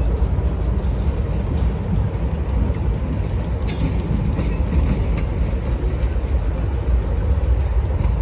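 Diesel locomotive running with a steady low rumble, with a few faint clicks over it.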